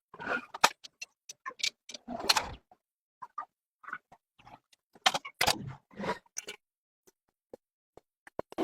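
Irregular clicks, knocks and short scrapes of metal engine parts and hand tools being handled while a three-cylinder engine is put together.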